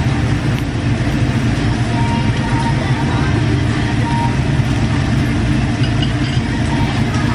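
Steady low rumble of busy restaurant background noise, with indistinct chatter from other diners.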